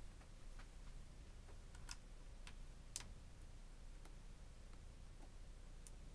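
Faint, scattered small clicks and ticks, spaced irregularly, over a quiet room: small plastic parts being handled, the loudest two about two and three seconds in.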